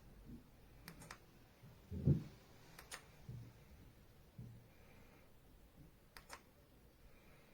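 A few sharp clicks, some of them doubled, spaced a couple of seconds apart, with a dull low thump about two seconds in.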